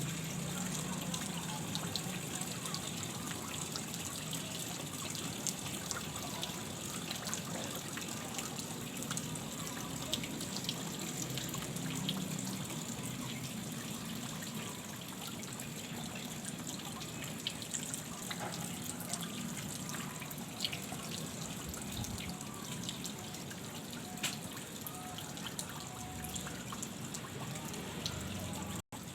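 Steady trickling of flowing water in a small creek, with scattered faint ticks.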